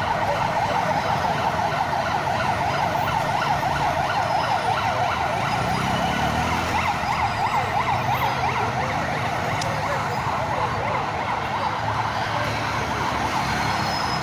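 Ambulance siren sounding continuously in a fast, warbling yelp over street traffic. A motorcycle engine rises in pitch as it passes about six seconds in.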